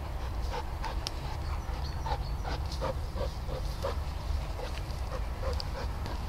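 A long-haired dog digging in grassy soil with its snout and paws: scratching and rustling, with short whimpers about two a second.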